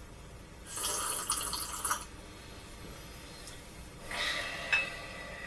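A slurping sip from a small china coffee cup, lasting about a second. Near the end comes a shorter sound, then a brief clink of china on china, then a sharp click.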